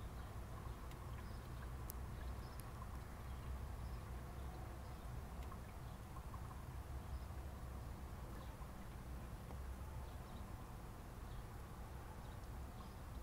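Motor oil pouring slowly from a plastic bottle through a plastic funnel into the engine's oil filler, heard faintly over a steady low outdoor rumble with scattered faint chirps.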